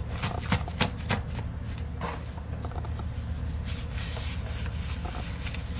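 Crinkling and rustling of a thin plastic Glatzan bald cap being stretched open and pulled onto a head, with several sharp crackles in the first two seconds and softer rustles after.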